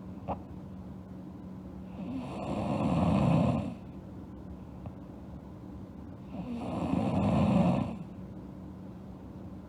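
A girl snoring in her sleep: two long snores about four seconds apart, each swelling louder for a second or so and then stopping abruptly. A short click sounds just after the start.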